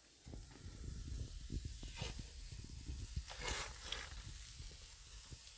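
Ribeye steak sizzling on a hot grill, with louder bursts of hissing about two seconds in and again around three and a half seconds.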